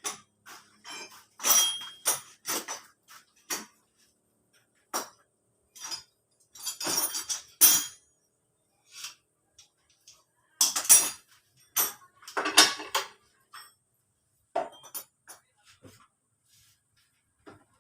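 Metal tools and engine parts clinking and clanking in irregular clusters with quiet gaps between, as a scooter engine is being taken apart.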